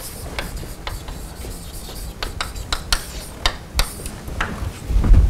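Chalk writing and drawing on a blackboard: a run of short scratchy strokes and taps, with a dull bump near the end.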